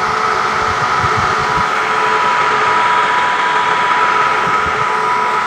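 Small electric motor running steadily: an even whirring noise with a thin, constant high whine.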